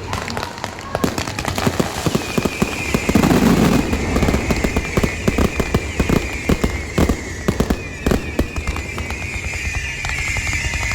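A lamp-pillar fireworks display going off: a dense, irregular run of firecracker bangs. About two seconds in, a high continuous whistle from whistling fireworks joins it.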